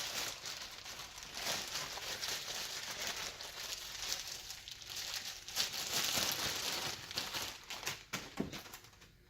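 Packaging crinkling and rustling as the ceiling fan is lifted out of its original box, with small clicks and knocks throughout. It dies down near the end.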